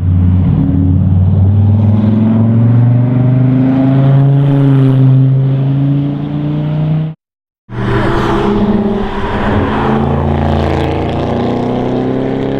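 Sauber Mercedes-Benz C11 Group C race car's 5.0-litre V8 running, its pitch gently rising and falling. It cuts out sharply about seven seconds in and returns half a second later in a second clip.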